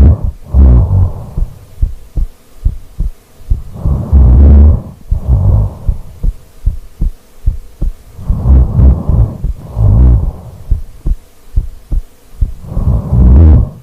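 A sleeping woman's heartbeat thumping steadily, heard close up. Over it comes her slow, deep snoring breath, in and out, about every four seconds.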